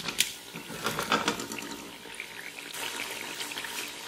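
Tomato-and-spice gravy sizzling and bubbling in a pot as fried chicken koftas are tipped in from a plate, with a few short knocks early on.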